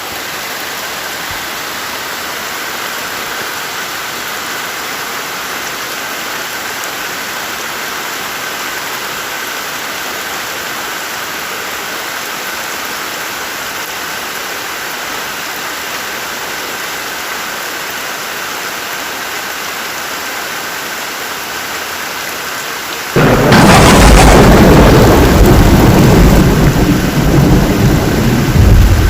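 Steady heavy rain falling, then about 23 seconds in a sudden loud thunderclap that rolls on as a heavy rumble over the rain.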